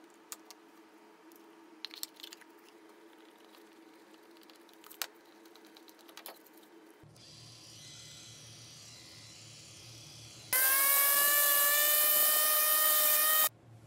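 Handheld electric sander running for about three seconds near the end: a loud, steady motor whine whose pitch rises slightly, then stops abruptly. Before it come a few light clicks and taps of a screwdriver and handling on a wooden block, then a quieter steady hum from about seven seconds in.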